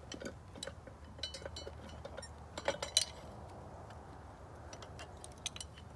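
Scattered light metallic clicks and clinks of a wrench working the bolts on the top of a cast-iron pitcher pump, with a pair of sharper clicks near the middle.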